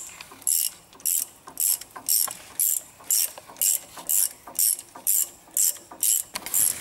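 Socket ratchet wrench clicking in short, even strokes, about two a second, while the brake caliper bolts are wound in.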